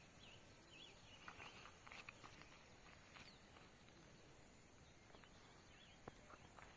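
Near silence: faint open-air field ambience with a few faint bird chirps, twice in short clusters, and a thin steady high-pitched hum.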